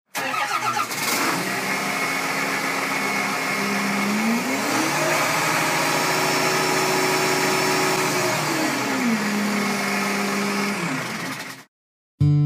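An engine running steadily, revving up about four seconds in, holding the higher speed, then dropping back to its lower speed about nine seconds in, and cutting off abruptly shortly before the end.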